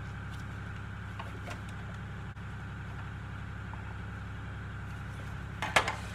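Steady low hum of a running motor in the background, with a few faint clicks from a screwdriver tightening the screws of a chainsaw's recoil starter cover. A couple of louder knocks come near the end as the saw is taken up by its handle.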